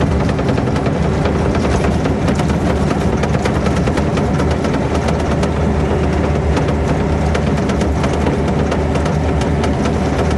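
Excavator's diesel engine running steadily with a low drone, with frequent clicks and knocks over it.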